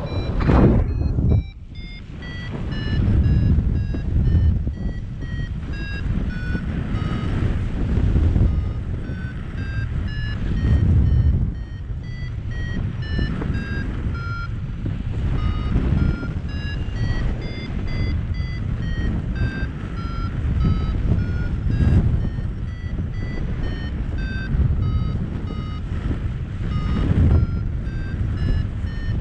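Paraglider's variometer beeping in quick, short tones whose pitch wanders up and down, signalling that the glider is climbing. Underneath runs the rush of wind on the microphone, swelling and fading.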